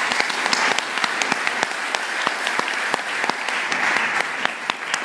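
Audience applauding: a dense, steady run of many hand claps.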